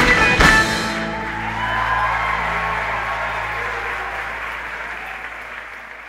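A choir and band end a song with sharp, accented final hits, the last about half a second in. The closing chord rings on under audience applause, and both fade away.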